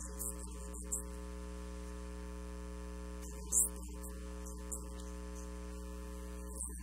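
Steady electrical mains hum with a stack of even overtones, picked up by the sound system, with two brief clicks about one and three and a half seconds in.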